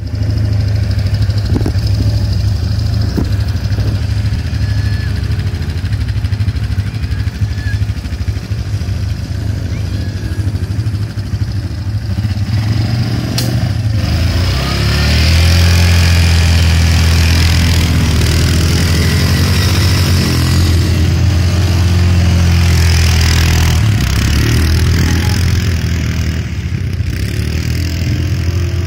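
Quad bike (ATV) engine running steadily, growing louder about halfway through as the throttle is opened.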